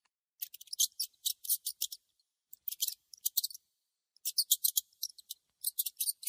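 Mouse squeaking: quick runs of short, high squeaks in four groups of about a second each, with short pauses between.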